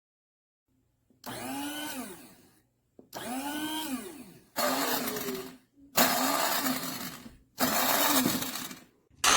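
KitchenAid blade coffee and spice grinder pulsed in about six short bursts, the motor spinning up and winding down in each, with the grinding hiss of the contents. The last burst is cut short near the end.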